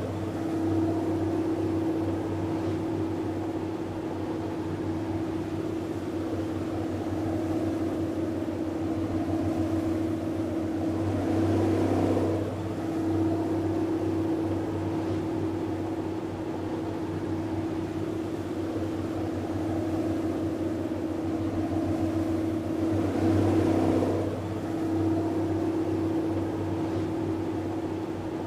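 Canal tour boat's engine running steadily at cruising speed, a constant low drone that swells and wavers briefly twice.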